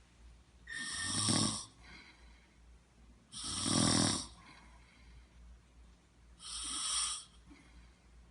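A person snoring: three snores about three seconds apart, each lasting about a second, with a softer breath after each.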